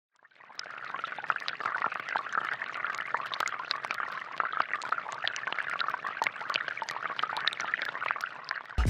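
Water from a small balloon-powered fountain jet splashing steadily into a container, with many small droplet splashes throughout.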